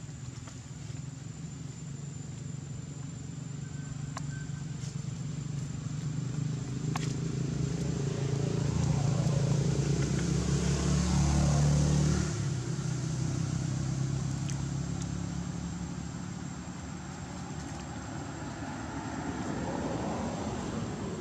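A motor vehicle's engine passing by: a low hum that grows louder over several seconds, peaks a little past the middle, then drops off sharply and fades.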